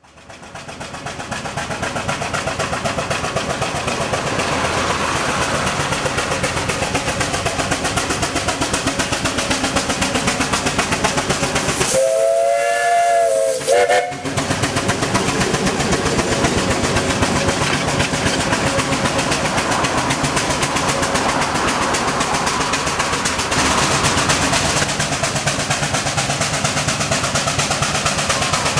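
Steam traction crane engine working up a steep hill. Its steam whistle is blown once, about twelve seconds in, for about two seconds.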